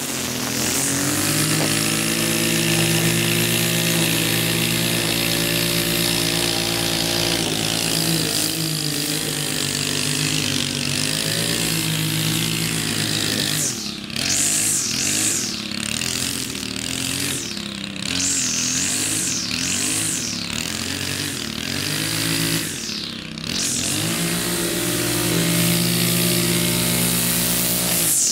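Gas string trimmer running at high throttle while edging along a concrete sidewalk. Partway through, the engine speed drops and climbs again several times as the throttle is eased and reopened, then it settles back to a steady high speed near the end.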